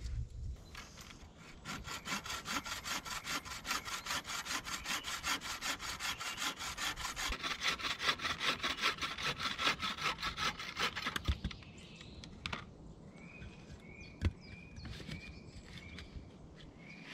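Hand saw cutting through a wooden branch in quick, even strokes, about four or five a second, stopping about two-thirds of the way through. After that a bird repeats a short high call about once a second, and there is a single knock of wood.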